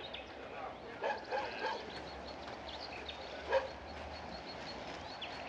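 A small dog barking and yipping in short calls: a quick run of them about a second in and one louder bark midway.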